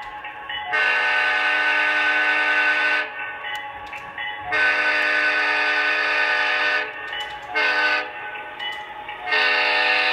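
An HO scale Conrail Dash 8 model locomotive's sound-decoder horn sounds the grade-crossing pattern: two long blasts, one short and a final long one that is still going at the end. It is a chord of several tones through the small onboard speaker, with the quieter diesel engine sound running between the blasts.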